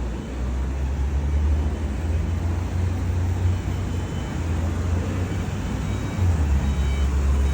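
Steady low rumble of a moving vehicle heard from inside, road and engine noise with no other distinct event.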